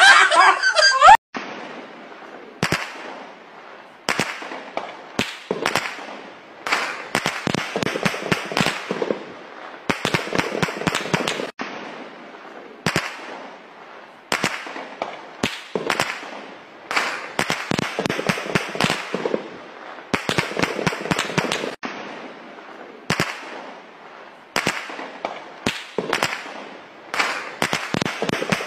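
Volleys of rapid gunshots, one burst after another with short pauses between, starting about a second in and going on throughout.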